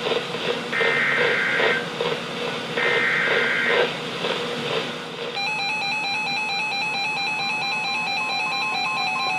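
Emergency Alert System SAME header data bursts on NOAA Weather Radio: two buzzy one-second bursts about a second apart, over a rapid beeping. From about five seconds in, a weather radio's electronic alert tone sounds, steadily alternating between two pitches, announcing a new severe thunderstorm warning.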